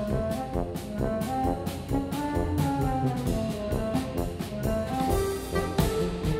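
Background music: a brass-led orchestral piece with a steady beat.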